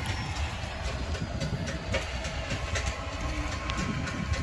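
A motor running with a steady low rumble, with scattered clicks and clanks of construction work over it.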